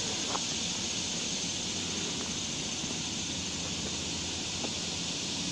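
A steady, high-pitched insect chorus of crickets, with the low rustle of footsteps on dirt and gravel underneath.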